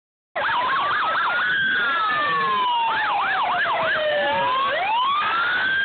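Several emergency-vehicle sirens sounding at once from a motorcade led by police vehicles, cutting in abruptly right at the start. Long wails slide slowly up and down, overlapped by fast warbling yelp cycles.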